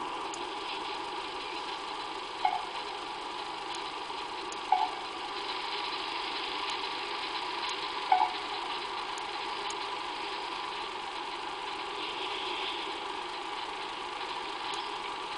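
Common raven giving three short, hollow, tonal calls a few seconds apart, over a steady background hum.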